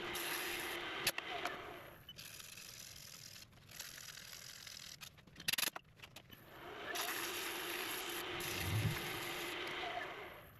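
Wood lathe running with a steady hum, then switched off about two seconds in. A few quieter seconds follow with light clicks and a sharp knock; the lathe starts again about seven seconds in and runs until just before the end.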